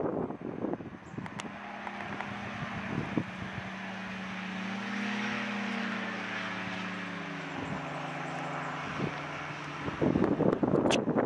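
Powered parachute's engine and propeller droning as the aircraft comes in low on final approach, its pitch rising slightly and then falling as it passes. Wind buffets the microphone at the start and again near the end.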